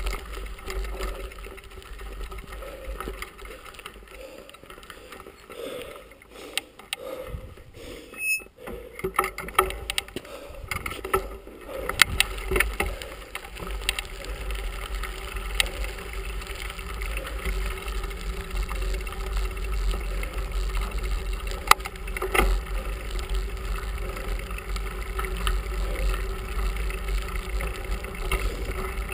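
Bicycle rolling along a rough carriage road, heard from a handlebar-mounted camera: steady tyre rumble and wind on the microphone, with sharp rattling clicks and knocks from the bike and mount over bumps. It goes quieter for a few seconds about a third of the way in.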